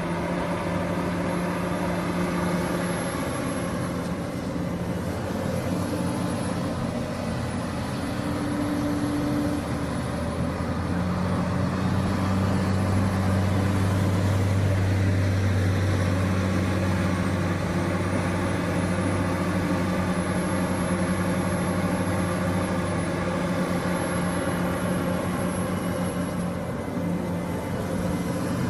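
Heavy diesel engine of an earthmoving machine running steadily under work, its note deepening and getting louder for several seconds mid-way before settling back.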